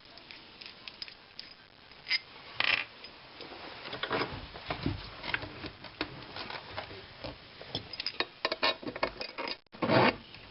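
Small metal clinks and clicks of nuts and washers being handled and fitted onto a threaded stud while bolting down an electric motor, with a few louder knocks, the loudest near the end.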